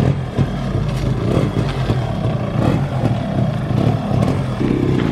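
Suzuki Shaolin's two-stroke engine running steadily at idle through its chamber exhaust.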